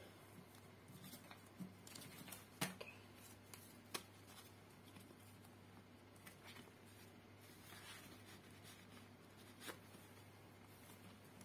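Faint rustling of paper banknotes being gathered and slipped into a clear plastic zipper pouch in a ring binder, with a few light clicks, over a low steady hum.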